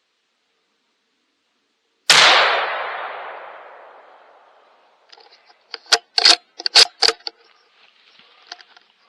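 A single rifle shot from a Remington Model 700 bolt-action, echoing away over about two seconds. About three seconds later comes a quick run of sharp metallic clacks as the bolt is worked to chamber another round.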